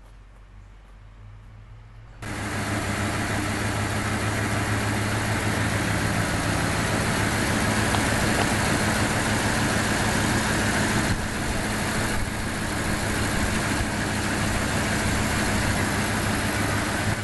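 A motor running steadily: a low hum under a loud hiss, cutting in suddenly about two seconds in.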